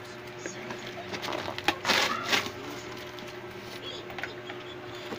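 Cardboard shipping box being pulled open by hand: flaps and packing scraping and rustling, loudest in a burst about two seconds in.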